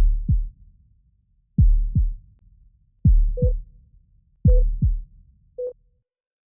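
Heartbeat-style intro sound effect: four pairs of deep, falling thumps about a second and a half apart. From about halfway, short beeps at one pitch join in between them.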